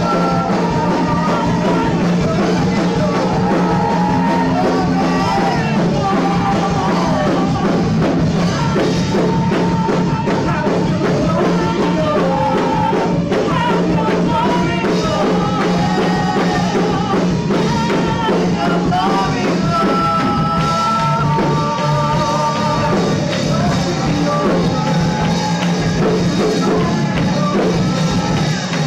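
Live worship band playing a song, with singers over electric guitar and keyboard.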